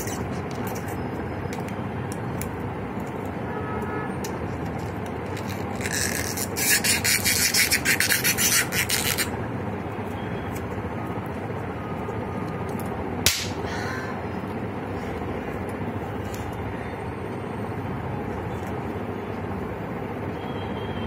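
A scrap of burst balloon rubber being worked at the lips and between the fingers to make a tiny bubble: a rapid rasping crackle for about three seconds, then one small sharp pop or snap about four seconds later, over a steady background hum.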